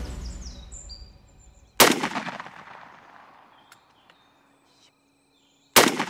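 Two shotgun blasts about four seconds apart, each followed by a long echo that fades away. The first shot misses the Rio Grande turkey gobbler and the second kills it.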